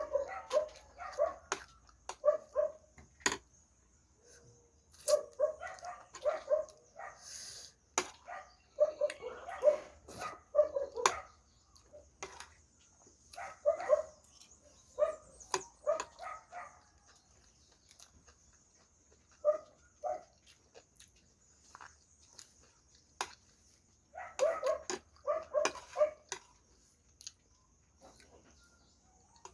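A dog barking and yipping in short bursts of two to four calls, repeated every few seconds. Sharp clicks from chewing and bones are scattered between them.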